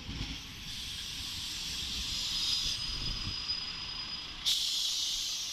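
ČD class 810 diesel railbus moving slowly past at close range with a steady hiss of air from its brakes and a thin high whine through the middle. A sudden louder blast of air comes about four and a half seconds in.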